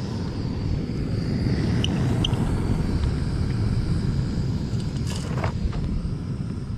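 Remote-canister camping gas stove burner running with a steady low roar under a pan. The roar drops in level at the very end as the gas is turned down at the cartridge valve.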